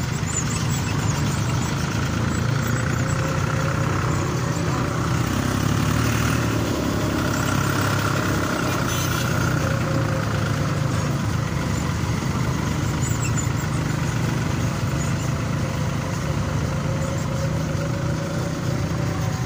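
Tractor engines running steadily while driving in a convoy, heard from aboard one of the vehicles.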